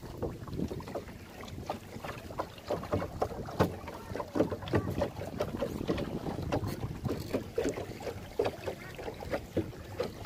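Water lapping and splashing irregularly against a small boat's hull as it moves along, with wind on the microphone.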